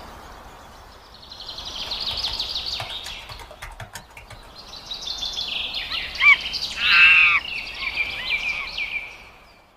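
Birds chirping and trilling in high-pitched runs, with a louder call a little past the middle. The sound fades out near the end.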